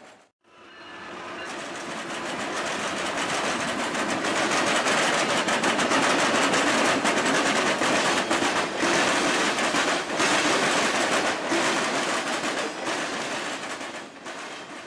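Norfolk Southern freight train of covered hoppers passing close by, its steel wheels clicking rapidly over the rail joints. The sound swells through the middle and fades slightly toward the end.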